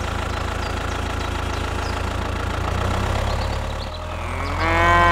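Tractor engine running steadily at idle, a sound laid over a toy tractor. Near the end a short drawn-out call sounds over it.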